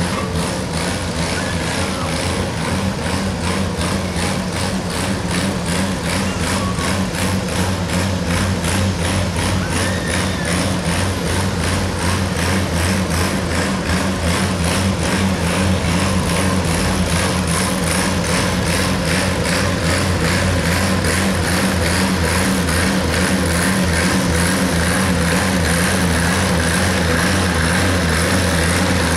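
An Oliver 77 tractor's six-cylinder engine pulling hard under full load while it drags a weight-transfer sled, running steadily with an even pulsing beat. It gets slightly louder in the second half of the pull.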